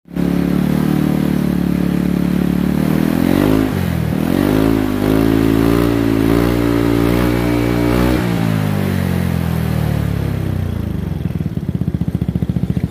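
Yamaha Cygnus X 125 scooter's single-cylinder four-stroke engine, running through its exhaust pipe with the silencer fitted. It runs steadily, is revved in several throttle blips from about four to eight seconds in, then drops back to a slow, evenly pulsing idle near the end.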